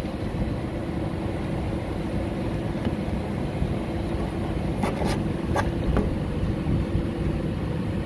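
Steady low drone of running machinery with a constant hum, and a few short clicks about five seconds in.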